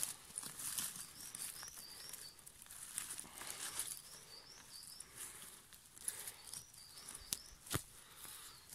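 Dry leaf litter and twigs rustling and crackling as they are handled and stepped through, with a few sharp twig snaps in the second half. A small bird gives short runs of high chirps three times.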